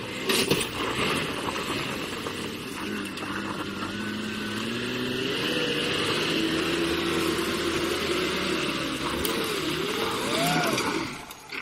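Cab-over box truck's engine revving hard under load as it struggles on a steep dirt track. The engine note holds fairly steady, then its pitch rises and falls several times near the end.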